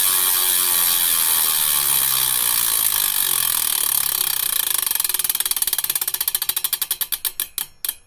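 Bicycle freewheel ratchet ticking as a wheel spins freely and runs down. A fast buzz of clicks slows into separate ticks over the last few seconds and stops near the end.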